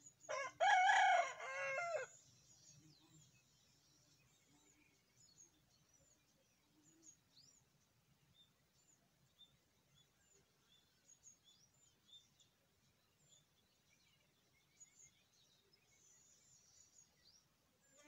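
A rooster crows once near the start, a call of under two seconds, followed by faint, scattered chirps of small birds.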